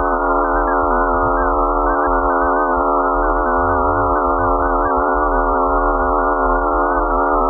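Eerie electronic drone from a sonification of space data: a dense cluster of steady, slightly wavering tones over a low rumble.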